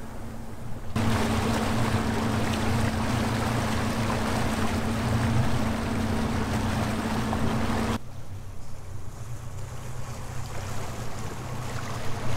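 Boat's outboard motors running steadily while water rushes past the hull. From about a second in until about eight seconds in, a loud rush of water and wind covers the engine; after that the engine hum is left with softer water.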